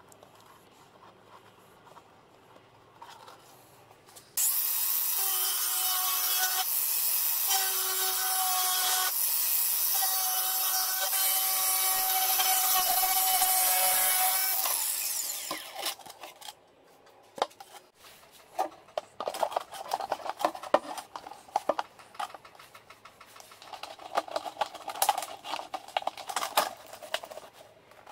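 Cordless angle grinder with a thin cutting disc running with a steady whine while it cuts through a thin plastic bottle. It starts about four seconds in, runs for about eleven seconds, then winds down. Scattered clicks and rustling of handling follow.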